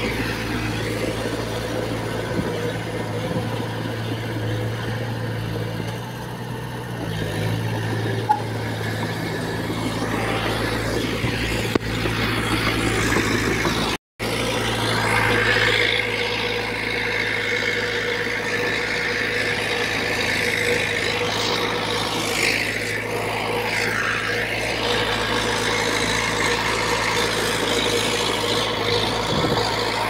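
Diesel engine of a small Komatsu D20P crawler bulldozer running steadily under load while pushing soil. The sound cuts out for a moment about halfway through.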